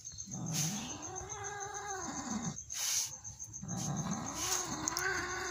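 Injured cat giving two long, drawn-out cries while being stroked, each rising and then falling in pitch. They are cries of pain from a leg injury.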